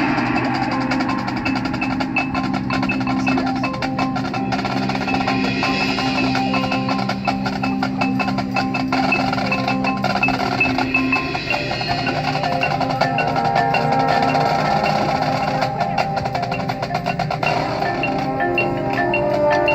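High school marching band playing, with mallet percussion (marimba, glockenspiel, chimes) and rapid percussion strikes over held low notes.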